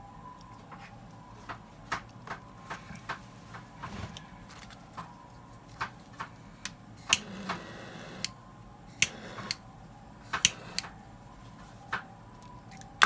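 Scattered clicks and taps of hands handling wires, connectors and small parts on a wooden workbench, with two short stretches of hiss about seven and nine seconds in.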